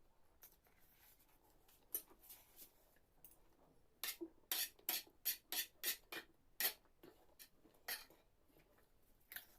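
Eating sounds close to the microphone: short sharp smacks and clicks, scattered at first, then a quick run of about a dozen between four and seven seconds in.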